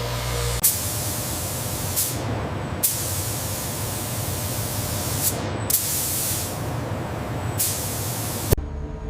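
Loud hiss of a high-pressure spray jet, starting sharply and restarting several times, then cutting off suddenly near the end.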